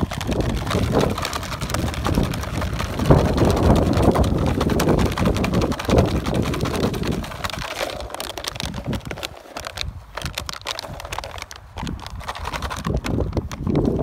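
Wind rumbling on the microphone, easing after about seven seconds, with scattered clicks and rustles of puppies tugging and chewing at a plastic bottle and rag toys.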